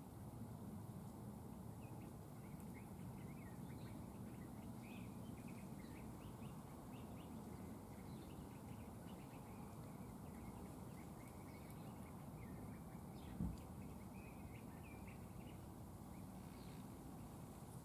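Small birds chirping and twittering faintly and irregularly over a steady low background hum. One brief low thump about thirteen seconds in.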